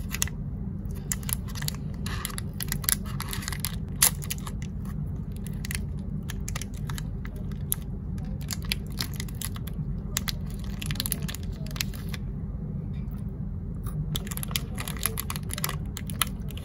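Irregular small crackles and clicks, thinning out for a couple of seconds near the end, over a steady low hum.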